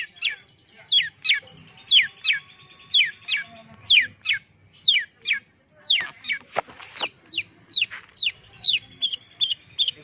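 Long-tailed shrike mimicking a chick's peeping: a run of high, sharply falling whistled notes, about two a second, quickening near the end into shorter peeps about four a second. Two sharp knocks come about two-thirds of the way through.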